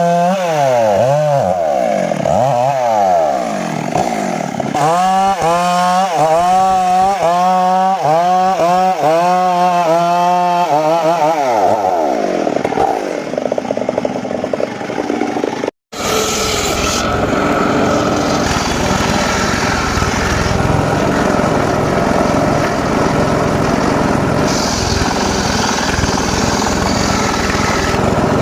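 Homemade circular-saw bench cutting teak: for the first dozen seconds the saw's pitch sags and recovers over and over as the blade takes load, then dies away. After a brief break near the middle, a steady, rougher sound of the blade running through the wood.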